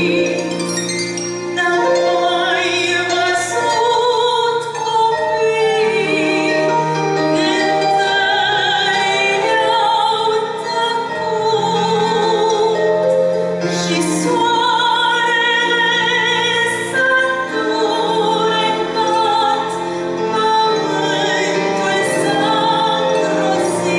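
A woman singing a solo Christian song with vibrato into a handheld microphone, over a musical accompaniment with steady low held notes.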